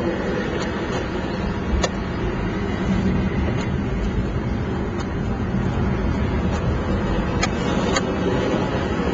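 Toy car rolling fast downhill: its wheels make a steady rough rumble and hiss on the road, with a few sharp clicks or knocks, one about two seconds in and two near the end.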